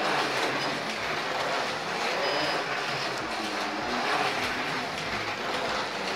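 Slot cars running laps on a plastic track: a steady whirring from their small electric motors along the slotted lanes.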